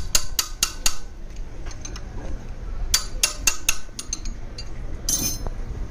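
Metal clinking in two quick runs of ringing strikes, like tools or small steel engine parts knocking together, with a short scraping rasp near the end, over a steady low hum.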